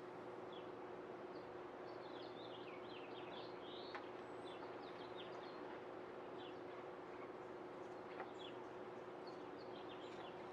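Quick, high chirps of small birds in the background, bunched about a second or two in and again near the end, over a steady low hum.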